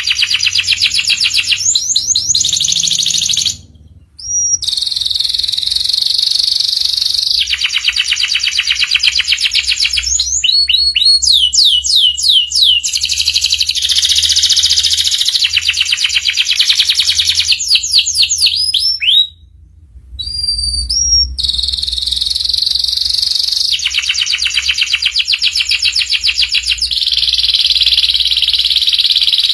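Domestic canary singing: long runs of very rapid, high trills, with a few quick falling whistled notes around the middle. The song breaks off briefly about four seconds in and again about two-thirds of the way through.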